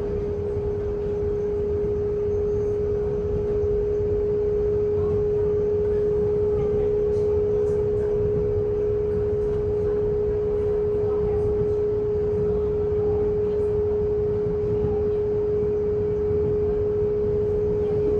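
Inside a Taiwan Railway EMU800 commuter train running along the line: a steady low rumble with a strong humming tone held at one pitch throughout.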